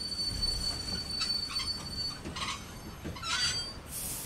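Train wheels running on the rails: a low rumble with a thin, steady high wheel squeal over the first half and three short screeches about a second apart, then a brief hiss near the end.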